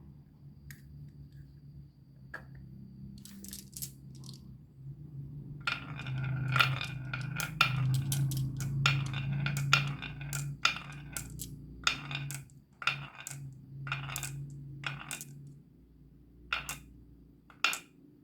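Marbles rolling down a wooden marble run: a steady low rolling rumble with sharp clacks as they drop onto and knock along the track. A few clacks at first, then a quick run of them from about six seconds in, thinning out near the end.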